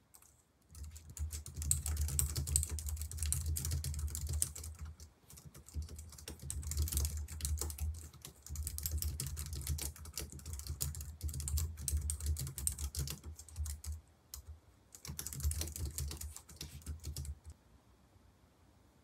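Typing on a Logitech MX Keys Mini's low-profile scissor keys: a quick, steady patter of soft key clicks with a light thud under them. It breaks briefly about 14 seconds in and stops a second or two before the end.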